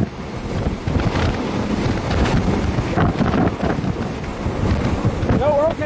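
Strong wind gusting hard against the microphone, a dense rushing noise with the inflow winds of a nearby tornado. Near the end a short, high-pitched wavering vocal whoop cuts in.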